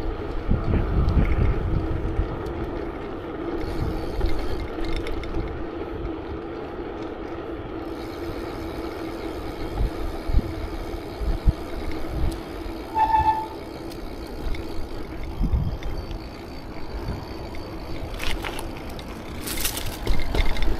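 Wind buffeting the microphone and tyre noise from a Redline BMX bike being ridden on pavement, with a steady hum underneath. A brief pitched tone sounds about 13 seconds in.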